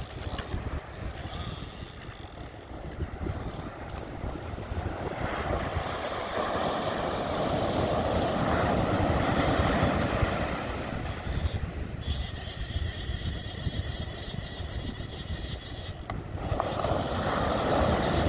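Wind buffeting the microphone over surf breaking on the beach, a steady rushing noise that swells about six seconds in and again near the end.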